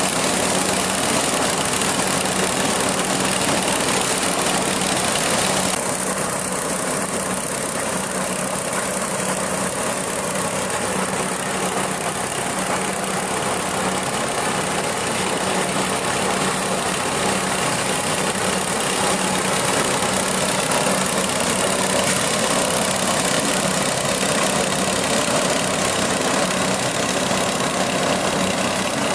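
An engine running steadily with a constant hum; its high hiss eases slightly about six seconds in.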